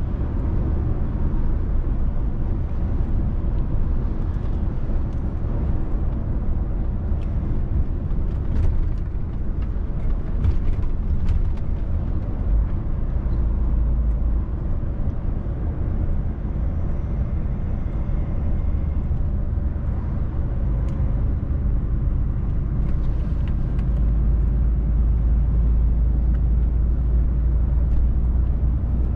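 DAF XF106 truck's PACCAR MX-13 six-cylinder diesel running steadily under way with road noise, a low drone that swells a little around the middle and again near the end. A few faint ticks come through about a third of the way in.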